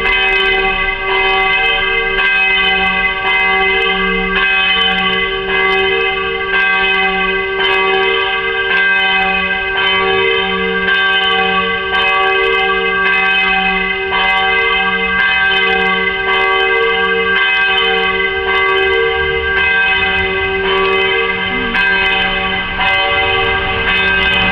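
Church bells pealing, rung for the start of mass. The strokes repeat evenly and overlap into one continuous ringing.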